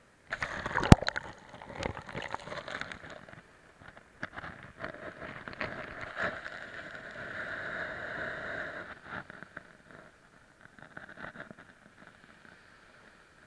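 Shallow waves washing up over and around a camera set at the waterline, with the water surging in waves and falling away, and smaller clicks throughout. A sharp knock about a second in, the loudest sound, is probably the water or a pebble striking the camera.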